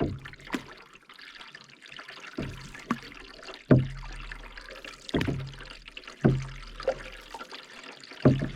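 Canoe paddles dipping and pulling through lake water, a stroke about every one to one and a half seconds, each with a splash and trickle of water off the blade.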